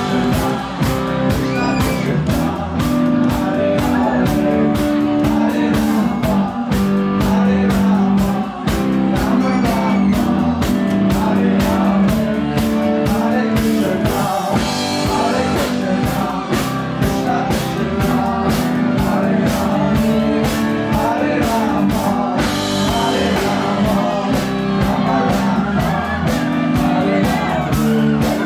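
Live rock band playing a song with singing over guitar and a steady drumbeat.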